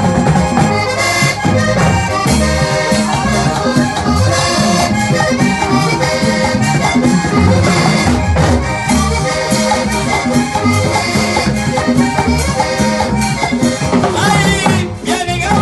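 Vallenato music: an instrumental passage led by accordion over a steady bass line and percussion.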